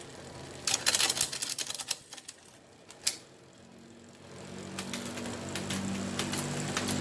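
Bicycle drivetrain being turned by hand: a fast run of ticking from the rear freewheel ratchet for about a second, a single click near the middle, then a steady hum that builds up as the chain and rear wheel spin.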